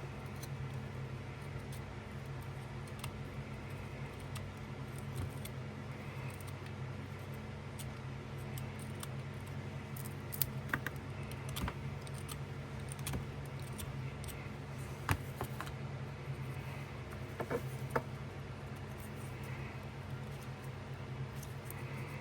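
Sticks and a pocket knife being handled, giving scattered light clicks and taps, several in quick succession in the middle, over a steady low hum.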